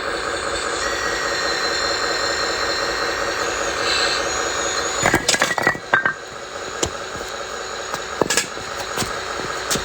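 Steady whine of a small motor with a fast rattle under it, then a run of sharp clicks and knocks from about five seconds in.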